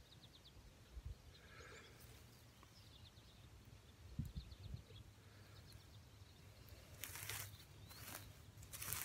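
Near silence with faint high chirps in the background and a few soft handling thumps; from about seven seconds in, dry grass rustles and crackles in short bursts as a hand gathers it up.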